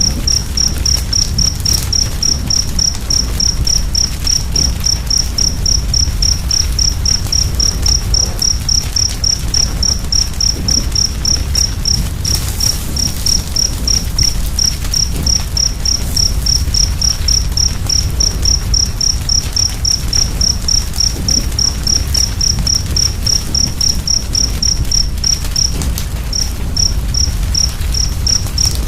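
A cricket chirping steadily at about three short, high chirps a second, pausing briefly near the end, over a low rumble of a fire with faint scattered crackles.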